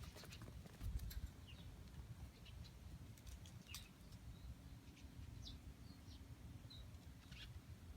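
Near silence: low room rumble with faint scattered ticks and a few short, high chirps.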